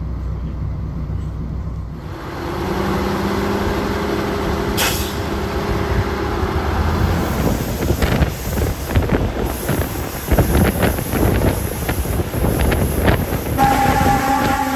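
Class 810 diesel railbus heard from on board: a low engine hum, then after a change the engine pulls with a steady drone, and then the wheels clatter over the rail joints as it runs along. About a second before the end the railbus horn sounds a steady chord.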